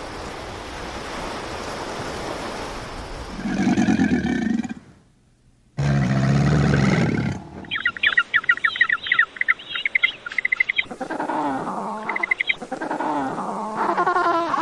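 A run of animal calls from separate clips. A steady hiss for about three seconds gives way to a short low call, then a sudden break and a deep low call. About three seconds of fast, high chirping follows, and then a series of wavering calls that bend up and down in pitch.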